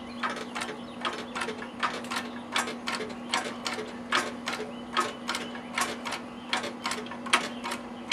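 Hydraulic bottle jack of a Cub Cadet 500 lb mower lift being pumped by its handle to raise a riding mower, with sharp metal clicks, often in pairs, about once every three-quarters of a second on each pump stroke.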